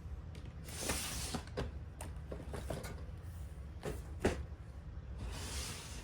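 Tidying and handling noises: scattered knocks and clicks of objects being moved and set down, with two short rustling swishes, one about a second in and one near the end, over a faint low hum.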